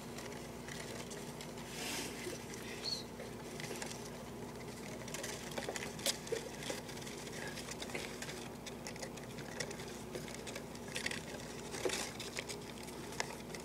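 Mice scrabbling inside a cardboard box: light, irregular scratches and taps of their claws on the cardboard, over a steady low hum.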